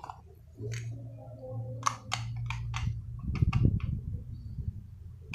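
Hard plastic clicks and knocks of a Play-Doh ice cream press toy being handled and pushed, several in quick succession about two seconds in and again a second or so later, over a low rumble.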